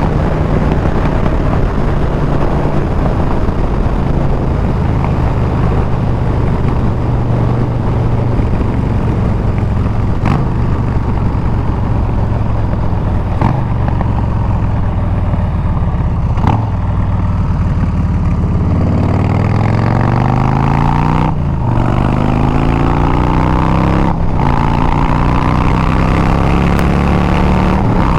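Harley-Davidson Milwaukee-Eight 114 V-twin running through Bassani straight pipes while riding: a steady cruise, then pulling hard through the gears in the last third, the pitch climbing with two short breaks at the upshifts.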